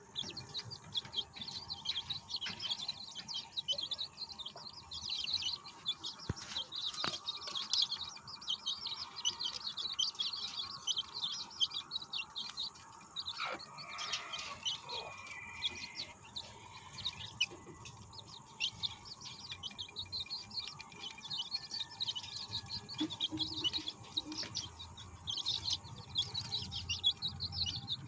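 A brood of young chicks, about a month old, peeping continuously in rapid, overlapping high chirps.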